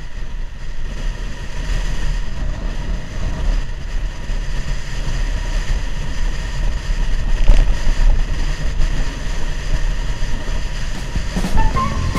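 Wind buffeting the microphone of a camera riding on a moving vehicle, over a steady low road rumble. Near the end, a short sound effect with a few electronic tones comes in.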